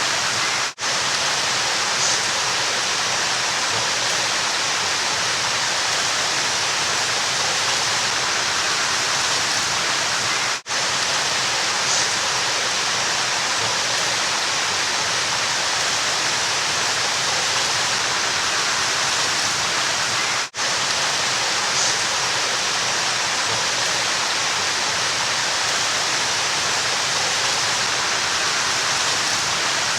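Flowing river water rushing in a steady, even hiss, strongest in the upper range. It breaks off for an instant three times, about ten seconds apart.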